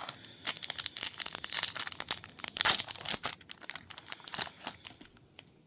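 A trading card pack's foil wrapper being torn open and crinkled, in a dense run of crackling that fades out near the end.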